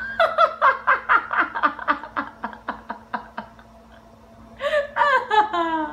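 A person laughing, a fast run of short bursts about five a second that tails off after about three and a half seconds, then picks up again with a few longer, higher-pitched sounds near the end.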